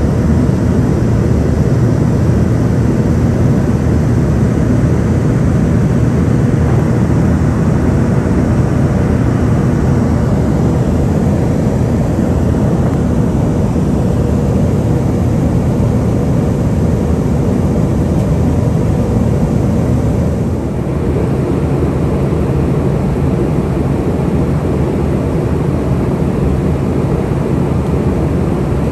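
Steady cabin roar of an Embraer ERJ145 climbing out after takeoff: its rear-mounted Rolls-Royce AE3007 turbofans and rushing airflow, heard from a passenger seat, with a brief dip in level about two-thirds through.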